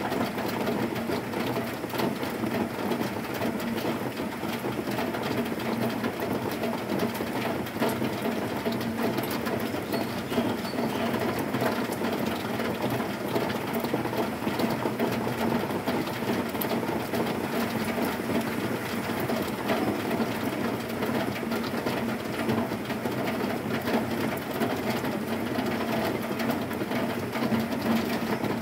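Heavy rain falling on zinc roofing sheets: a dense, steady patter of drops on the metal.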